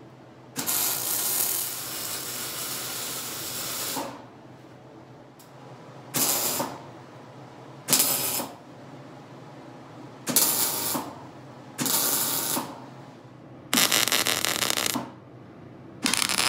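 Wire-feed (MIG) welding arc crackling on steel in a string of welds: one long bead of about three and a half seconds, then six short bursts, each about a second long.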